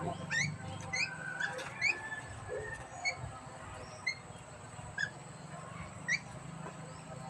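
Bilbong bird giving short, upward-sliding chirps, roughly one a second, over a low steady hum.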